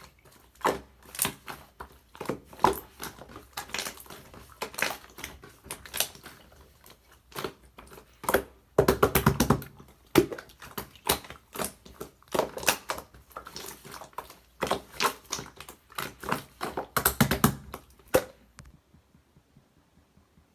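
Irregular crunching and crackling at an uneven pace, with a denser, louder run about 9 s in. It stops abruptly a couple of seconds before the end.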